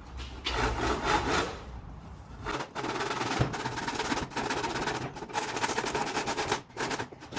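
Old bow saw cutting through a wooden axe handle, rasping back and forth in strokes about a second apart, with brief pauses between them.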